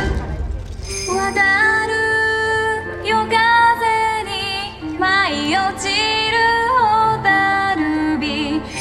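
Yosakoi dance music in a soft passage: a woman sings a slow, wavering melody over held chords, with no drums.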